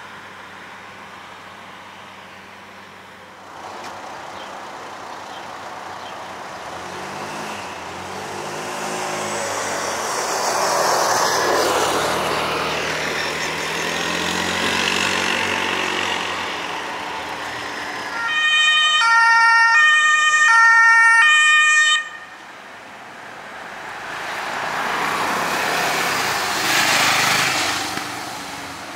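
Emergency vehicles passing on call. The engine and road noise of one vehicle swells and fades. From about 18 to 22 seconds a loud two-tone siren (German Martinshorn) alternates between two pitches and cuts off suddenly. Another vehicle passes near the end.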